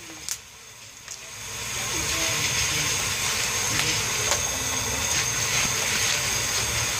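Unpopped corn kernels being stirred with a wooden paddle in a hot cast-iron kettle corn kettle: a steady sizzling hiss with scattered sharp ticks, getting louder about a second and a half in.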